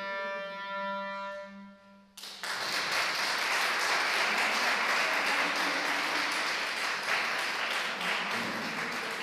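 Clarinet and bassoon holding their final notes together, which cut off a little over two seconds in; an audience then applauds.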